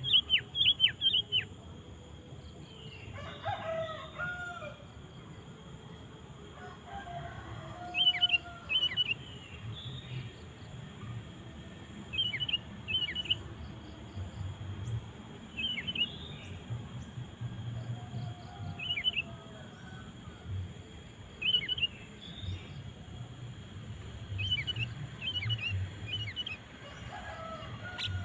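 Sooty-headed bulbul (kutilang) calling in short bursts of two to four sharp, falling notes, repeated every few seconds. Fainter, lower, drawn-out calls from another bird come in a few times.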